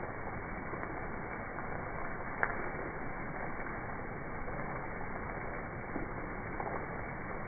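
Steady rain falling, an even hiss with a faint tap about two and a half seconds in.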